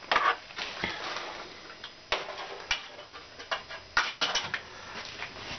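Irregular metallic clicks and knocks from the removed cylinder head and parts of a 4M40 diesel engine being handled, about eight sharp ticks at uneven spacing.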